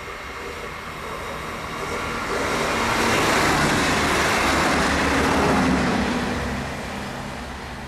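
A train passing by: its running noise builds over about three seconds, stays loud for a few seconds, then fades away.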